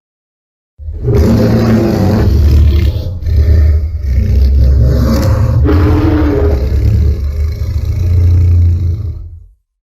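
Tyrannosaurus rex sound effect: one long, low growling roar that starts about a second in, wavers in pitch and fades out near the end.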